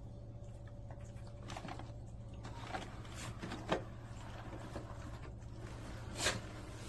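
A small dog moving about, making scattered light taps and clicks, with a louder click about four seconds in and another near the end, over a steady low hum.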